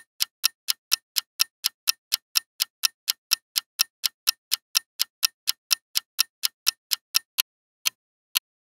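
Clock ticking quickly, about four sharp ticks a second, slowing to about two a second near the end.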